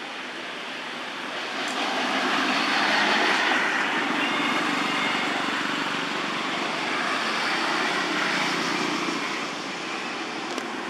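Rushing noise of a passing vehicle, swelling about two seconds in and fading near the end.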